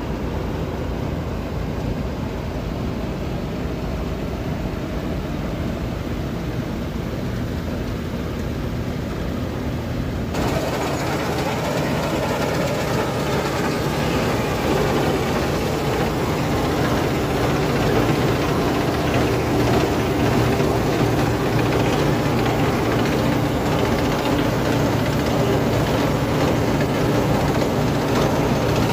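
Claas Dominator 48S combine harvester running steadily in a wheat field, its engine and threshing machinery making a continuous mechanical drone. About ten seconds in the sound suddenly becomes louder and brighter.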